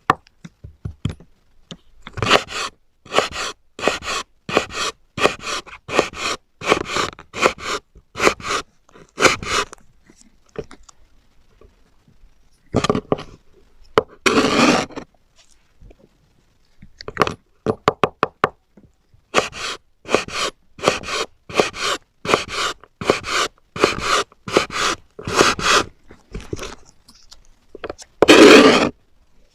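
Knife cutting through eggplant in a steady run of sharp strokes, about one and a half a second, broken by short pauses. Two longer scraping sounds come about halfway through and near the end.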